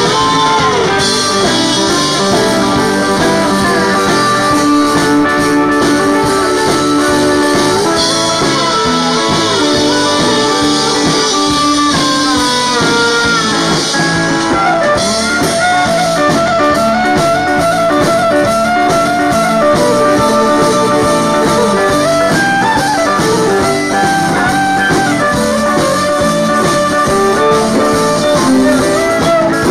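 Cajun band playing live: steel guitar, Cajun button accordion and fiddle in an instrumental passage, with sliding notes about twelve seconds in.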